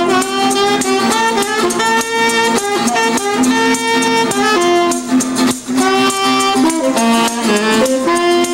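Street band playing a boogie-woogie tune: a tenor saxophone carries the melody over acoustic guitar and a steady rhythmic beat.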